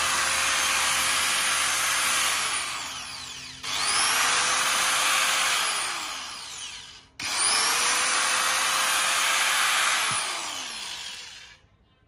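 Hitachi long-body 100-volt, 720-watt angle grinder running free with no load, switched off and restarted twice. Each start is a whine rising quickly up to speed, and each stop a slow falling coast-down; the last coast-down dies away near the end.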